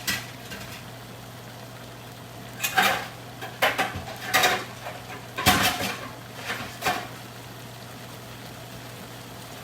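Pot lids clattering against cookware as a lid is fitted onto a pan: about six sharp clanks with a short ring, spread between about three and seven seconds in, over a steady low hum.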